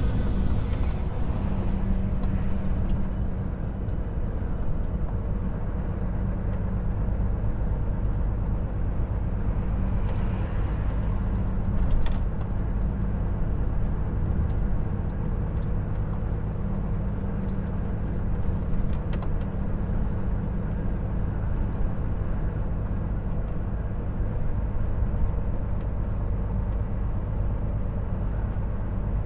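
Volvo FH 460 truck's 13-litre six-cylinder diesel running steadily under way, with a constant low engine drone over road and tyre noise. A short sharp knock comes about twelve seconds in, with a few fainter clicks later.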